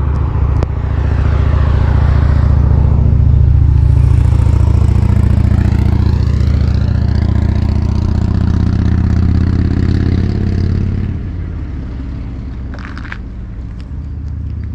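A car on the road: a steady low rumble of engine and tyres that eases off about eleven seconds in, followed by a few short clicks.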